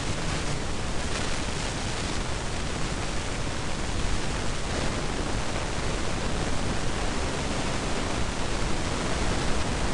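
Steady, loud hiss of recording noise, even and unchanging, with no other sound on top of it.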